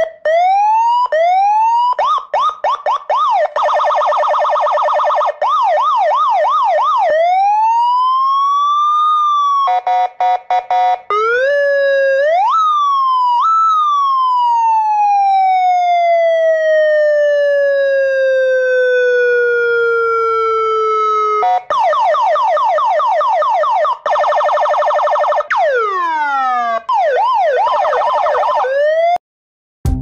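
Electronic police escort (patwal) siren running through its modes. It plays quick rising-and-falling yelps, a very rapid pulsing warble and a stepped two-tone part, then a long tone that slowly falls in pitch over about eight seconds, before more fast warble and yelps. It cuts off suddenly just before the end.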